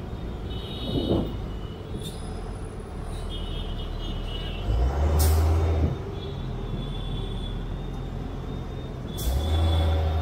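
City street traffic heard from a moving car: a steady low road and engine rumble, with two loud hissing surges over a deep rumble, about five seconds in and again near the end.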